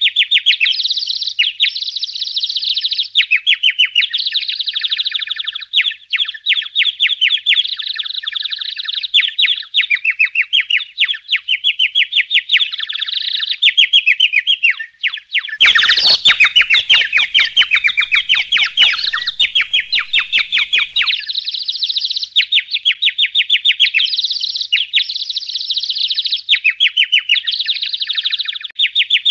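Songbirds chirping and trilling: a continuous run of very fast, high, short notes. From about halfway through, for some five seconds, rapid clicking that reaches down low mixes in.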